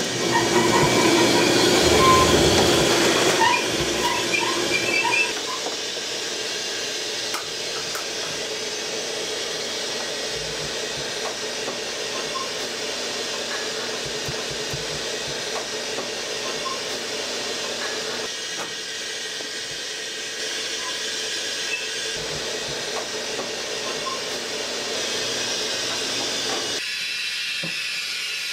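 Steady hiss of steam from a dumpling steamer, louder for the first five seconds or so.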